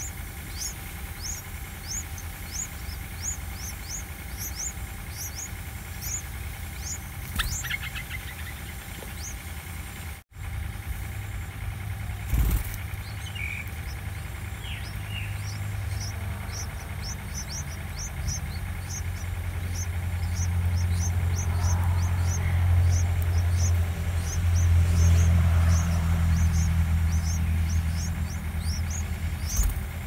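Bulbul nestlings begging: a steady series of short, high, downward squeaks, about two a second, which pauses briefly a little before the middle. Under it, a low vehicle-engine rumble swells through the second half, and there is a single sharp knock near the middle.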